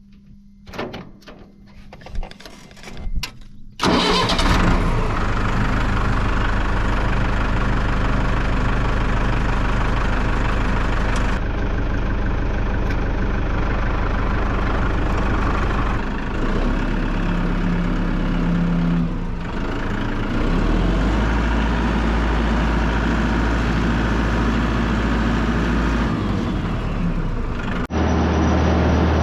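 Tractor engine starting about four seconds in after a few short clicks, then running steadily.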